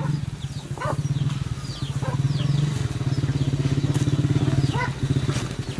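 A small engine running steadily with a fast, even beat, and short high chirps of birds over it.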